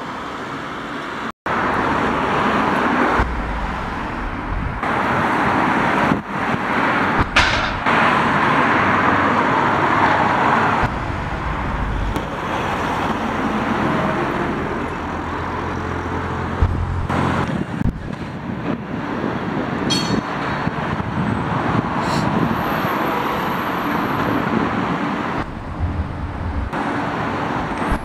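Steady road traffic noise, a continuous rush of passing vehicles, broken by a brief dropout about a second in.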